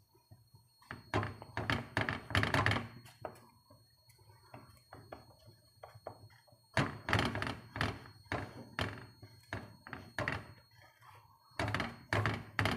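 Irregular dull knocks and thumps as hands press and spread raw pizza dough out across a frying pan on a gas hob, in clusters about a second in, again from about seven seconds, and once more near the end.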